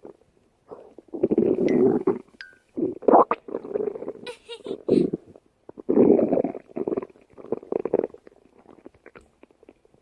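A person's stomach growling: a string of rumbles of uneven length with short pauses between them, weaker near the end.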